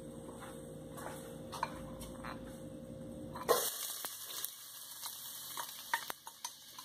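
Diced onion tipped from a glass bowl into hot oil in a stainless steel pot, which starts sizzling suddenly about three and a half seconds in, with light clicks and taps as the pieces land. Before that, a low steady hum while the oil heats.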